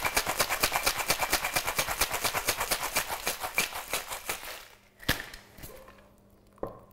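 Ice cubes rattling hard inside a metal Boston shaker shaken fast, about eight strokes a second, dying away about four and a half seconds in. This is the hard shake that whips the egg white into a froth. Then comes a sharp metal knock as the tins are knocked apart, and a lighter clink near the end.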